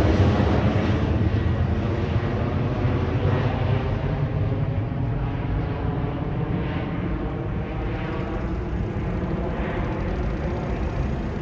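Airliner engine noise, loud at first and gradually fading as the aircraft moves away, the higher part of the sound dying off first.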